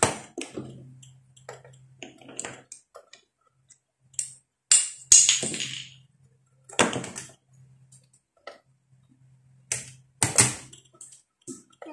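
Scattered clicks, knocks and clatters of pliers and metal parts as wires are worked inside an open amplifier chassis, the loudest about five seconds in and again just after ten seconds, over a faint low hum.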